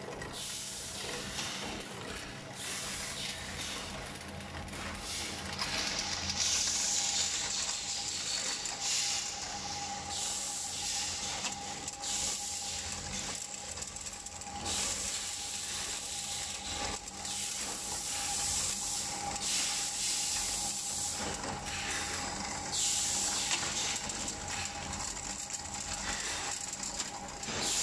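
Steel drawer slide rails clattering and scraping against each other as they are fed by hand through a drawer slide assembly machine, with a steady machine hum underneath and a hiss that swells and fades several times.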